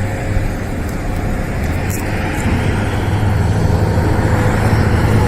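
Vehicle engine running: a steady low hum under an even rushing noise that grows a little louder after about two seconds.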